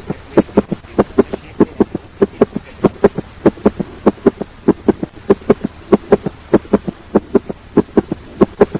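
Recorded heart sounds in a fast three-beat gallop rhythm: an S3 (ventricular or protodiastolic) gallop, a low extra sound following the second heart sound in each cycle. Past about age 30–35 this is taken as pathological, the sign of a failing heart.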